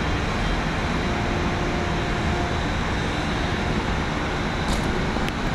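Steady machinery drone of a crane and ship's equipment unloading sugar with a grab bucket, with a faint hum held under it and a couple of light clicks near the end.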